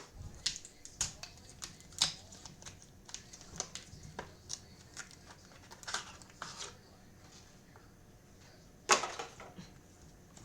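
Trading cards and their cardboard-and-wrapper packaging being handled: scattered light clicks and rustles, with a louder rustle about nine seconds in.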